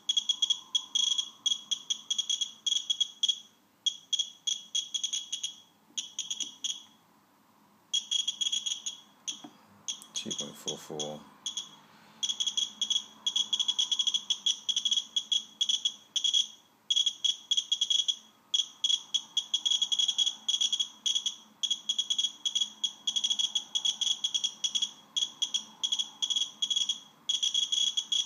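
Radex Geiger counter clicking rapidly, each detected particle a short high beep, the counts coming in dense irregular runs from the radium-painted hands of an old watch at about 2.4 microsieverts per hour. A brief low knock about ten seconds in.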